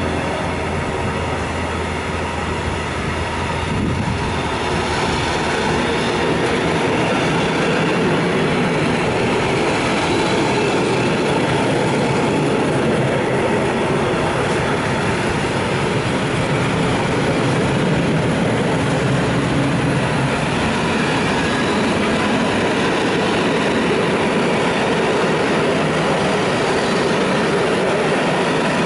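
Long intermodal freight train of container flat wagons rolling past: a steady, loud rumble and rattle of wagon wheels on the rails.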